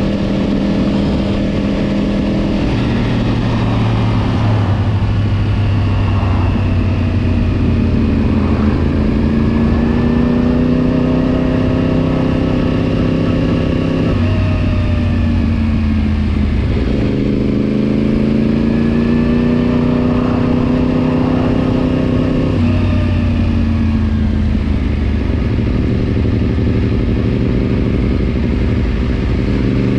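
Yamaha R1 sport bike's inline-four engine under way, its pitch climbing steadily then dropping sharply twice as gears change, before climbing again.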